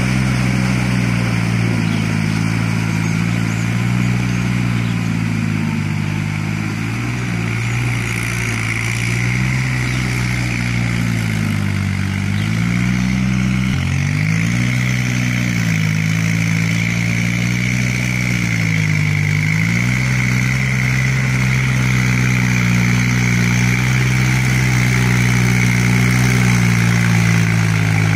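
Kubota tractor's diesel engine running steadily under load while driving a rotary tiller through muddy paddy soil, its pitch sagging briefly a few times around the middle as it lugs.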